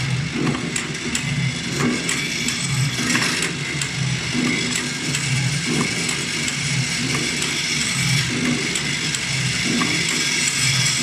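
Automatic flat-die thread rolling machine running: a steady motor whine with a low, rhythmic pulse a little more than once a second, plus scattered light metallic clicks.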